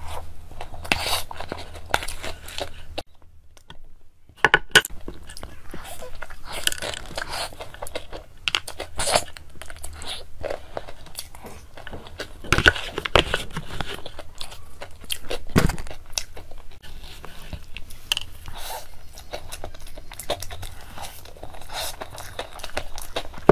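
Close-up eating sounds: a metal spoon scraping a soft cream dessert with a nut topping out of a paper box, with chewing and wet mouth smacks, and a few louder knocks in the middle.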